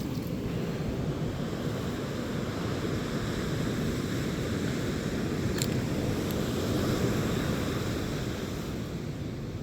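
Ocean surf washing against the shore, with wind buffeting the microphone, swelling a little past the middle and easing off. A single short click sounds about halfway through.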